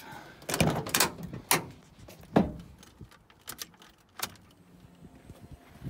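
Pickup truck door being opened by its chrome handle and latch, then shut with a thud, followed by keys jingling and clicks at the steering column ignition. The sound is a series of sharp clicks and knocks.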